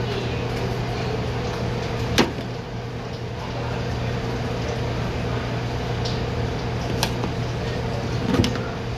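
Steady hum of a commercial kitchen's exhaust hood fan, with three short sharp clicks about two, seven and eight seconds in.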